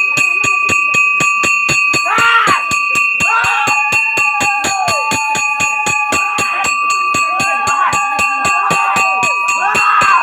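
Festival percussion and bells: a fast, even beat of about four to five strikes a second under bells ringing without a break, with voices crying out in long, arching shouts over it.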